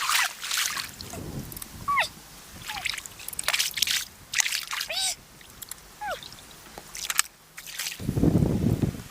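Water splashing and sloshing in a series of short bursts, with several short falling chirps between them and a louder, lower rush near the end.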